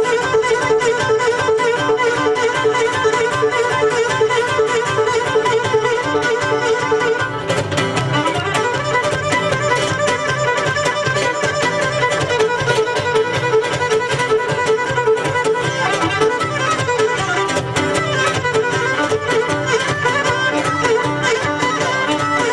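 Live Cretan dance music without singing: a Cretan lyra leads the melody over strummed laouto and guitar and a steady percussion beat, playing a pentozali.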